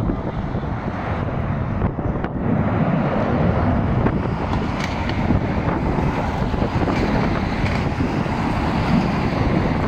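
Wind buffeting the phone's microphone over the steady rumble of a twin-engine jet airliner flying low overhead. The noise grows a little louder about two and a half seconds in.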